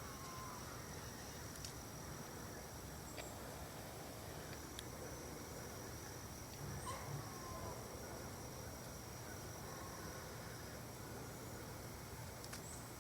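An unidentified animal's call, short and slightly falling, heard twice: once right at the start and again about seven seconds in. The source is the kind that sounds like a fawn or a bird.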